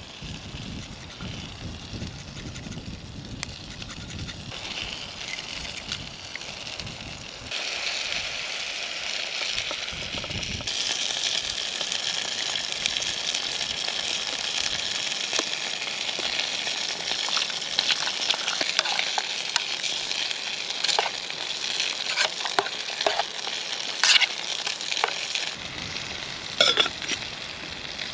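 Food sizzling in a pan over a campfire, a steady hiss with scattered sharp crackles and pops, louder from about eight seconds in.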